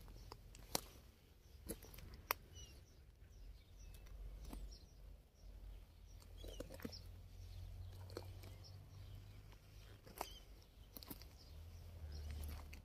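Faint outdoor ambience: a low rumble, scattered sharp clicks and a few faint short bird chirps.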